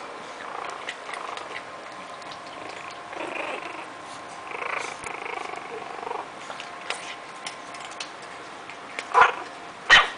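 Maltese puppies play-fighting: scattered small growls and scuffling, then two short, louder cries about a second apart near the end.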